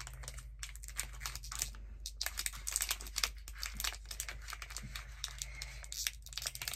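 Plastic candy-bar wrapper crinkling and crackling in a child's fingers as she picks and pulls at it, trying to get it open. The crackles come in a dense, irregular stream with no pause.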